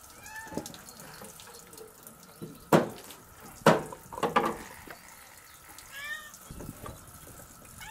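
Water running from a tap into a stainless-steel sink while fish is being cleaned, with two loud sharp knocks about a second apart near the middle and a few smaller clatters after them.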